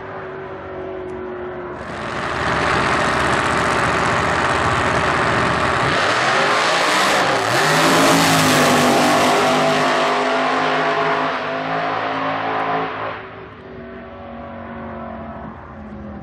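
Supercharged Holden Commodore ute drag car's blower-topped engine running hard on a drag-strip pass. The note jumps louder about two seconds in, dips and climbs again in pitch around the middle, then falls away quieter for the last few seconds.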